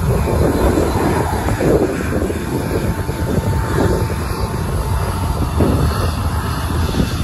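Jet airliner's turbofan engines running loud and close as the plane moves past, a heavy steady rush of engine noise and jet blast with a faint high whine.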